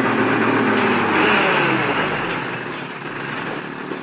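A motor vehicle's engine running hard, its pitch shifting as it is revved, then falling and easing off in the second half.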